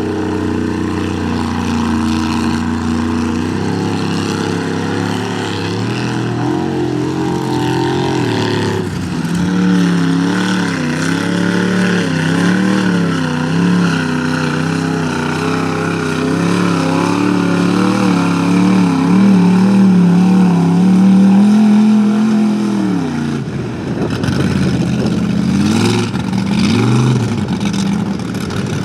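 Mud-bogging truck engine running hard: fairly steady at first, then louder from about nine seconds in with its pitch wavering up and down as the throttle is worked, dropping off a little past twenty seconds and revving in short rises and falls near the end.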